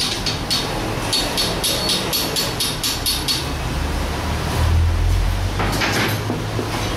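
Light metallic clicks and clinks of motorcycle gearbox gears being handled and fitted onto their shaft, a quick run of about a dozen, about five a second, in the first half. A steady low hum runs underneath.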